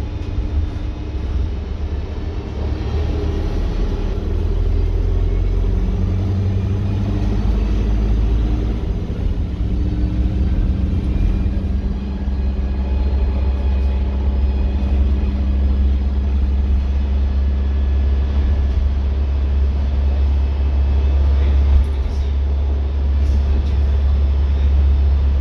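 Engine and drivetrain of a Daimler-engined Wright StreetLite single-deck bus, heard from inside the saloon while the bus is under way. It is a loud, steady deep drone with road noise, and its pitch shifts slightly about six seconds in.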